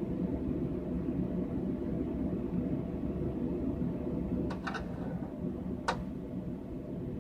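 Steady low hum, with a few light clicks a little past the middle.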